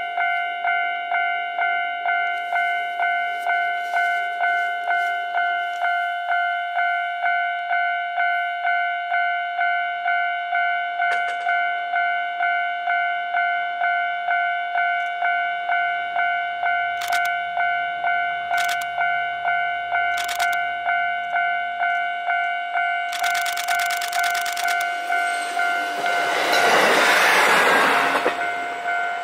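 Level-crossing warning bell ringing steadily, about two dings a second, as a KiHa 40 series diesel railcar approaches; the railcar's engine hum comes in faintly in the middle. About 26 seconds in the train passes close by with a loud rush of wheel and rail noise and kicked-up snow, then the bell carries on.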